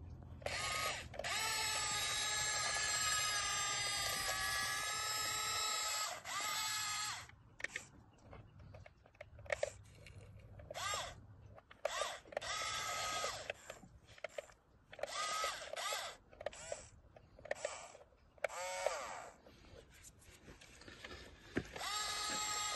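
A small electric motor, like a power drill, whirring in repeated starts and stops: one long run, then a string of short bursts, its pitch sweeping as it starts.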